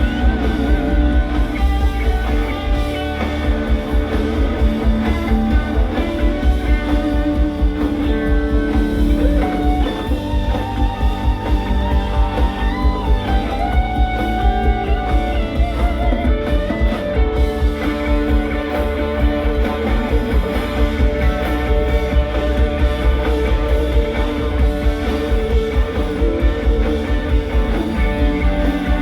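Live rock band playing an instrumental passage: electric guitar lines over bass and drums, with a steady beat. The guitar lines waver in pitch around the middle.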